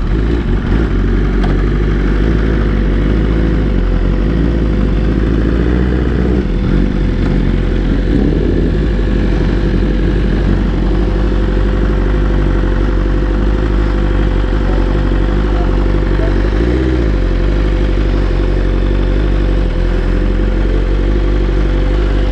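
BMW superbike's engine running at a steady note, with a thin steady whine above it and a heavy low rumble.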